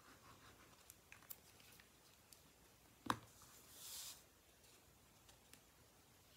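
Faint handling of paper and craft supplies on a table as a glued paper panel is laid down: a few light clicks, one sharp knock about three seconds in, then a brief papery swish.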